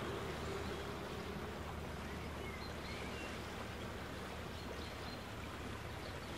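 Steady rush of wind and tyre noise on a helmet-mounted microphone while riding a bicycle, with a few faint high chirps near the middle.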